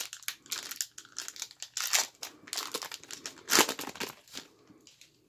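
Foil wrapper of a trading-card pack crinkling and tearing as it is opened by hand, in a run of irregular crackles. The loudest crackle comes about three and a half seconds in, and it dies away near the end.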